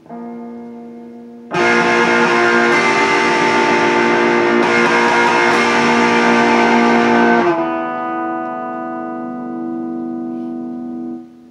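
Electric guitar played through an MXR Prime Distortion pedal set with the distortion all the way up, tone at 90% and output at 80%. A softer note rings first, then a loud, heavily distorted chord is struck about a second and a half in and sustains, dropping to a quieter wavering chord that is cut off near the end.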